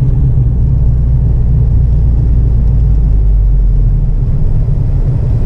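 Volkswagen MK6 GTI turbocharged four-cylinder on the move, heard inside the cabin: a steady low rumble of engine and road noise, whose deepest drone eases about four and a half seconds in.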